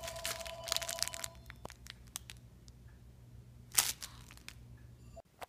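Crinkling and crackling of crinkly material as a dog paws and mouths at it: a dense run of crackles over the first second and a half, then scattered crackles with one louder crackle near four seconds in. A steady high tone sounds alongside the first crackles, and the sound cuts off sharply just before the end.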